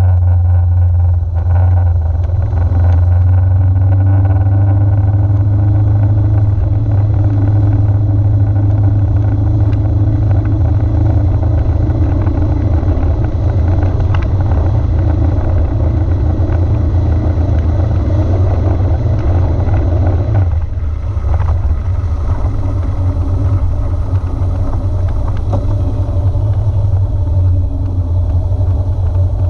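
Motorcycle running along at road speed under a heavy, steady low rumble; the engine note eases off about two-thirds of the way through, then carries on.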